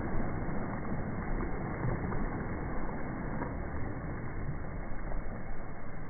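Shore ambience: small waves washing up and back on a sand beach, with wind rumbling on the microphone.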